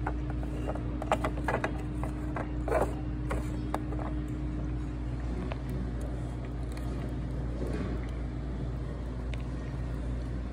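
Restaurant background: a steady low mechanical hum, with a few sharp clicks and clinks in the first four seconds, like dishes or things being handled on a table.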